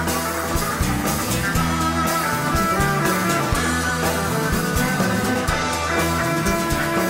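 Rock music with electric guitar, bass and drum kit.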